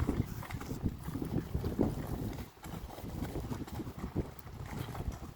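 Wind buffeting the microphone in irregular low gusts, easing briefly about two and a half seconds in.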